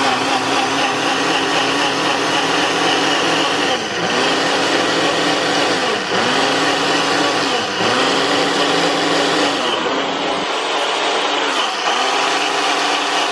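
Ninja blender running continuously, blending chopped ginger, lemon juice and a little water. The motor's pitch dips briefly and recovers about every two seconds.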